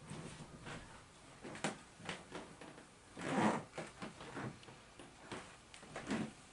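Pencil scratching on paper in short, irregular strokes, with a louder rustle of paper about three and a half seconds in.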